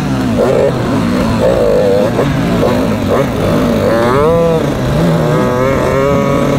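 Dirt bike engines running, their pitch rising and falling with the throttle, with one clear rev up and back down about four seconds in over a steadier engine note.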